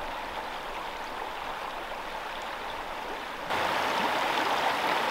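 River water rushing over shallow rapids, a steady rush that steps up louder about three and a half seconds in.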